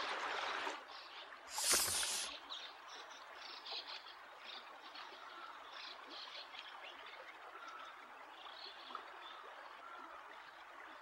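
A stream running over rocks, then faint outdoor ambience with small chirps. A brief loud whoosh comes about two seconds in.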